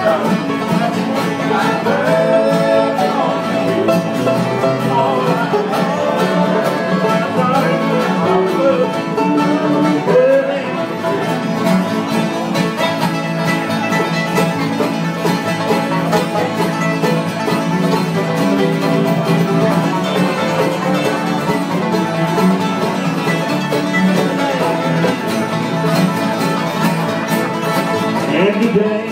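Live acoustic bluegrass band playing an instrumental break, with the five-string banjo taking the lead over acoustic guitar, mandolin and upright bass.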